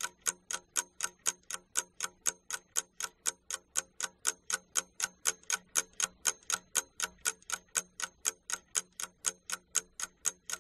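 Clock ticking sound effect: a steady run of sharp, evenly spaced ticks, about four a second, counting down the time given to answer a quiz question.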